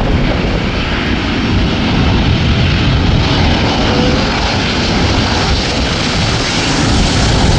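Airliner engines running loud and steady, a deep rumble with hiss on top.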